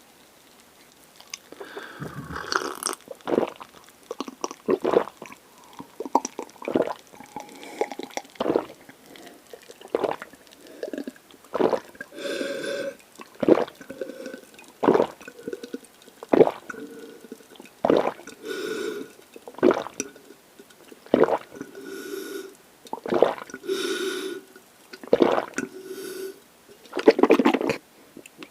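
Close-miked chewing of a mouthful from a pork galbi lunch box, short mouth sounds repeating about once a second after a second or so of quiet.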